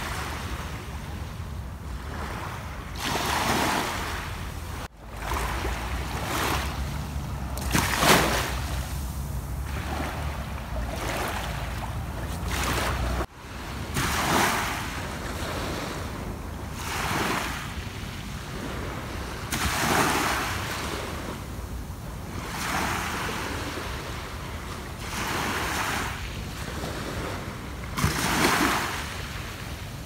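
Small waves breaking and washing up a sandy shore, a rushing swell every few seconds, with a low wind rumble on the microphone. The sound cuts off abruptly twice, about five and thirteen seconds in.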